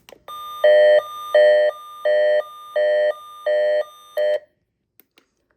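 Emgykit MD319 weather radio sounding its weather-alert siren on test: an electronic two-tone alarm that switches back and forth between a higher tone and a louder lower tone, about six cycles in four seconds, then stops.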